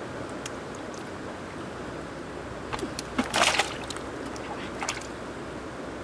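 Steady rush of moving water, with a brief sloshing splash about three seconds in and a few light clicks and knocks around it.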